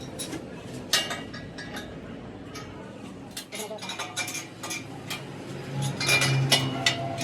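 Irregular metal-on-metal clinks and taps, steel struck against steel, each ringing briefly; they come thicker near the end, with a low hum around six seconds in.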